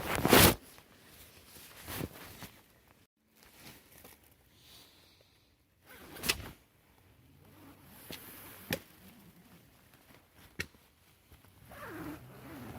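Handling noises: a loud, short swish about half a second in, then scattered rustles and a few sharp clicks.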